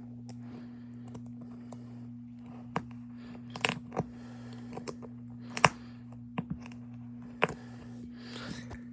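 Sharp, irregular clicks and small scrapes of a tool working at the stubborn front camera parts of an iPhone XR, about eight in all, over a steady low electrical hum.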